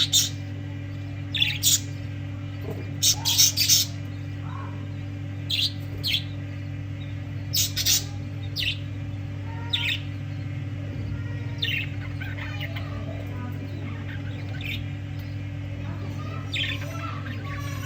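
Budgerigars chirping in short, sharp calls, often two or three in quick succession, louder during the first half and softer and more chattering later. A steady low hum runs underneath.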